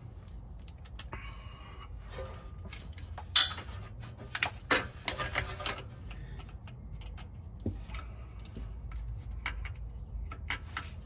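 Irregular clicks and metallic taps of a T20 Torx driver working the mounting screws of a Chevy Tahoe's ABS module, with one sharper click about three seconds in and a quick run of clicks about a second later, over a steady low rumble.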